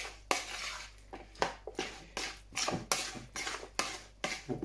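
Metal spoon clinking and scraping against a ceramic mixing bowl while stirring a wet rice, kidney bean and tomato mixture, with irregular strokes a few times a second.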